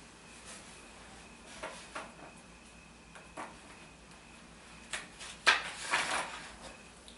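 Handling noises: a few soft clicks and knocks, then a sharp knock about five and a half seconds in, followed by about a second of rustling.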